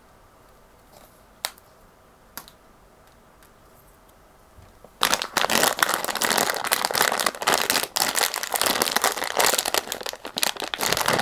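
Two light clicks, then from about five seconds in a dense, continuous crinkling of plastic packaging being handled.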